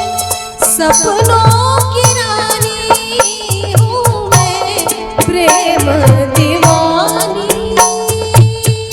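Live Indian band music, an instrumental stretch of a ghazal: a bending, ornamented melody line over sustained notes, with a steady drum beat and repeating low bass thumps.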